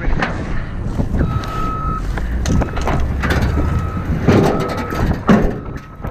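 A vehicle's reversing alarm beeping steadily at one pitch, about once a second, over wind rumble on the microphone and scattered knocks and clatter.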